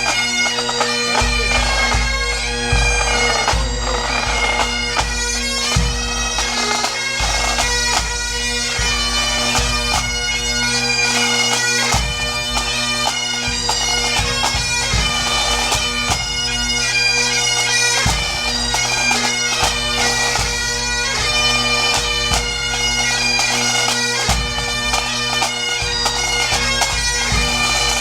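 Music: a melody played over steady held drone notes, with frequent drum strokes.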